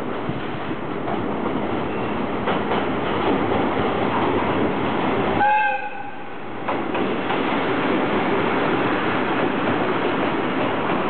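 JR Kyushu ED76 electric locomotive hauling a sleeper express into the station: a steady rumble of wheels on rail that grows as it nears. About halfway through comes a short horn blast, then the rumble goes on as the locomotive passes close by, with a few clicks of wheels over rail joints.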